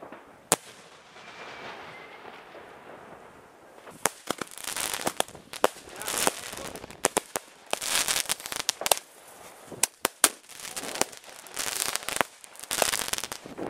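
New Year's Eve fireworks. There is one sharp bang, then a hiss for about three seconds. From about four seconds in comes dense crackling with many sharp pops, in overlapping bursts, as crackling stars go off.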